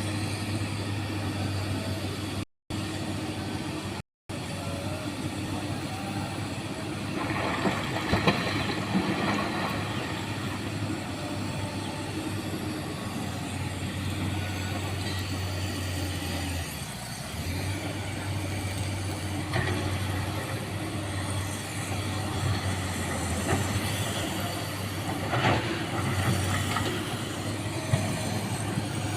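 Heavy diesel excavator engine running with a steady low drone, with stretches of clattering as small stones are dumped into a steel dump-truck bed, about seven to ten seconds in and again near the end. The sound cuts out for an instant twice early on.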